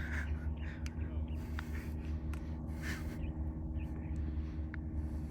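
Steady low rumble with scattered light clicks and soft swishing rustles, as of people walking through dry brush with a phone microphone.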